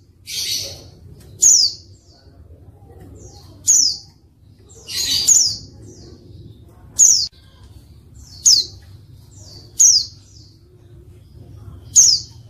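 Female white-eye (pleci) giving short, sharp chirps that fall in pitch, seven in all, about one every one and a half to two seconds. Two longer, rougher, hissing sounds come near the start and about five seconds in. This is the female's call used to lure males into answering and singing.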